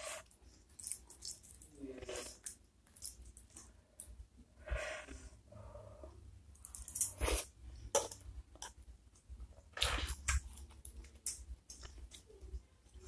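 Close-miked eating sounds: a person chewing and slurping beef meatball soup with flat noodles, with many short wet mouth clicks and smacks. The loudest one comes about seven seconds in.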